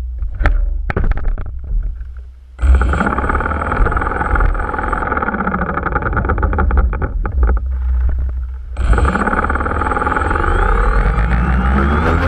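Small electric drone's propeller motors starting suddenly about two and a half seconds in and running steadily with a high whine. They cut out briefly near the end of the second third, start again, and rise in pitch toward the end as the drone throttles up to lift off.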